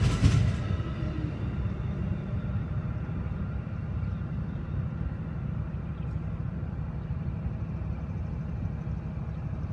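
CSX diesel locomotives running with a steady, even low rumble.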